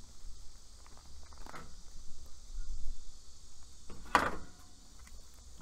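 A rusty sheet-metal evaporator coil being turned around by hand on top of an outdoor condenser: shuffling and scraping of metal, a light knock about a second and a half in and a louder knock about four seconds in.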